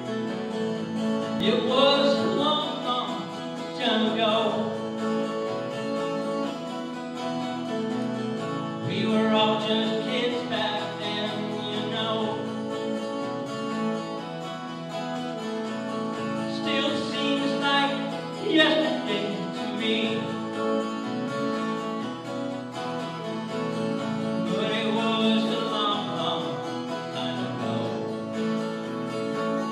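Live music: an acoustic guitar played with a school concert band holding steady chords, and a voice singing a phrase every several seconds.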